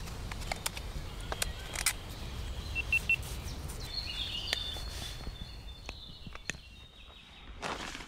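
Woodland ambience: a small bird gives three quick high chirps about three seconds in, then a few short calls a second later. Scattered small clicks and rustles run under it.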